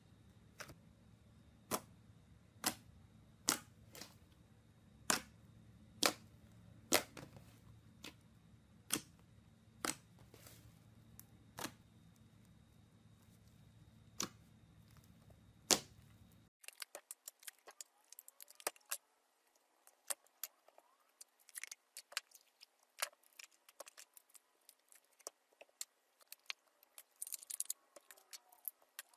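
Thick green slime kneaded and stretched by hand, giving sharp pops of trapped air about once a second. About halfway it changes to many small rapid crackles of a slime mix full of foam beads being worked.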